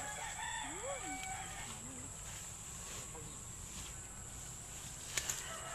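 A chicken gives a short rising-and-falling call about a second in, over a steady high-pitched insect drone. Two sharp clicks come close together near the end.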